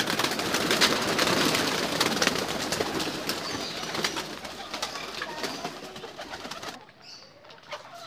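A flock of fancy pigeons flapping their wings as they fly out of an opened loft. The flapping is loudest in the first few seconds, thins out, and drops away at about seven seconds.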